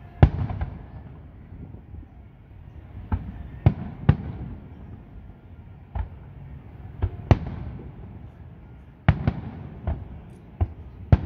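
Distant aerial firework shells bursting in an irregular series of about a dozen booms, some in quick pairs, over a low continuous rumble.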